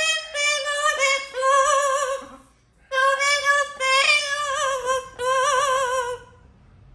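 Amazon parrot singing in a human-like voice: wavering, melodic phrases in two stretches with a short break about two and a half seconds in. The owner takes the tune for a made-up medley of bits of songs.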